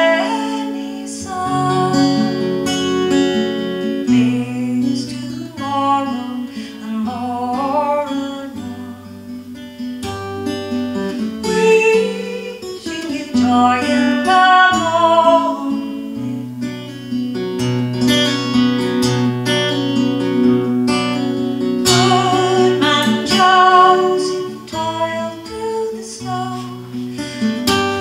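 A woman singing while playing an acoustic guitar.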